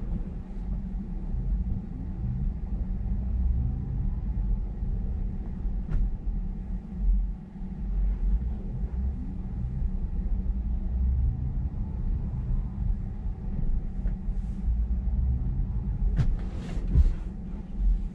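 Low, steady rumble of a Tesla Model Y rolling slowly through a parking lot as it drives itself under Smart Summon.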